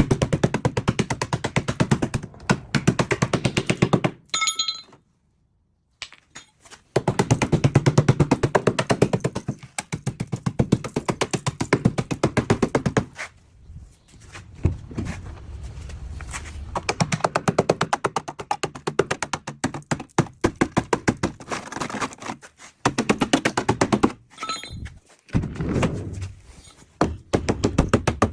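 Rapid, evenly repeated knocking in bursts of several seconds, broken by short pauses and a few abrupt total silences.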